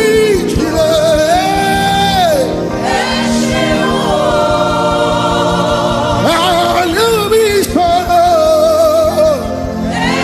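Gospel praise singing over backing music; the voice holds long, wavering notes.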